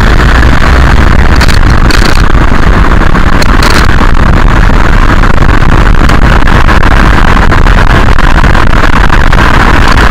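Loud, steady road and wind noise from a VW Golf Mk4 TDI being driven, heard close to its suspension, with a few sharp knocks in the first few seconds. These knocks are the kind of knocking/rattling noise from the suspension that the owner is trying to trace.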